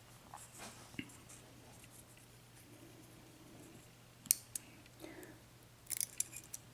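Faint, scattered small metallic clicks and taps from a Yale 6-pin mortice lock cylinder as its top pins and springs are worked out of the housing. The sharpest click comes past the middle, with a quick cluster near the end.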